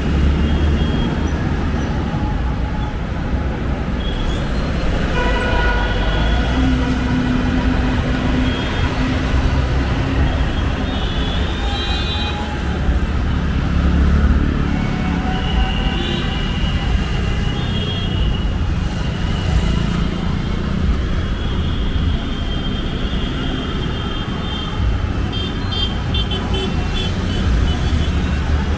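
Busy city road traffic: a steady rumble of engines and tyres, with vehicle horns honking again and again throughout.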